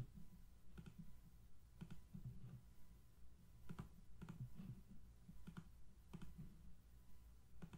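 Near silence with about eight faint, irregularly spaced clicks of a computer mouse, over a low steady hum.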